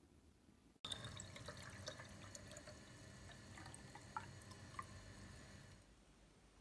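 Faint dripping and trickling of water with small ticks and droplet sounds. It starts abruptly about a second in and dies away near the end.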